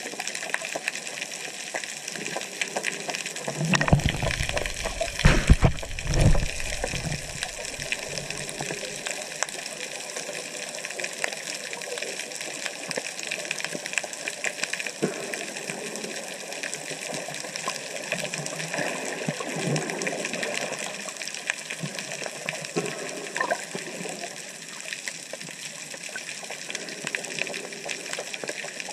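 Underwater sound through a GoPro's waterproof housing: a steady hiss peppered with fine crackling. A few seconds in comes a short stretch of loud, low rumbling water noise.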